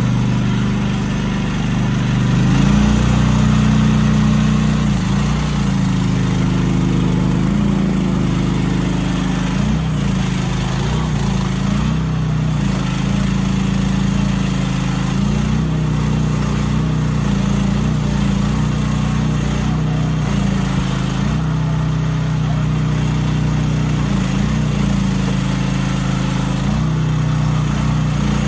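Small gasoline engine of a Landhero mini excavator running steadily. Its pitch shifts and steps briefly a dozen or so times, as under changing load.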